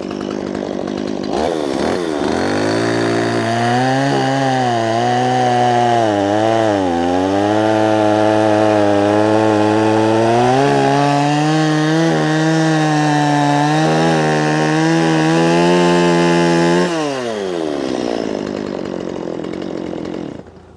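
Two-stroke chainsaw revved up and cutting through the end of an Eastern Red Cedar log to square it off, its engine note dipping again and again as the chain bogs in the cut. At the end of the cut the engine drops back toward idle.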